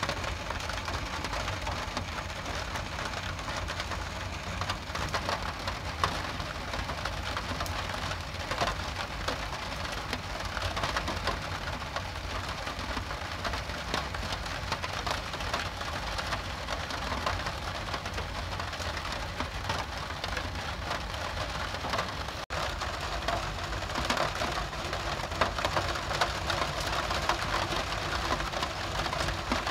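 Steady rain falling, a dense hiss full of fine drop ticks, over a constant low rumble. About two-thirds through the sound briefly drops out, then the rain comes back somewhat louder.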